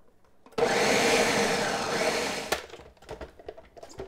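Countertop blender starting about half a second in and running for about two seconds, pureeing roasted red peppers, roasted garlic and caramelized onion with beer, then stopping with a sharp click. Light clicks and knocks follow as the lid comes off.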